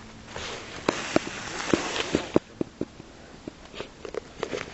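Footsteps rustling through undergrowth, with a string of sharp, irregular snaps.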